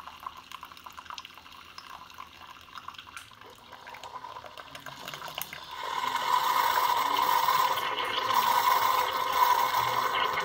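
Keurig K-Café single-serve coffee maker brewing, coffee pouring in a thin stream into a mug with faint crackling and fizzing. About six seconds in, a louder steady hum with a held tone joins the pour.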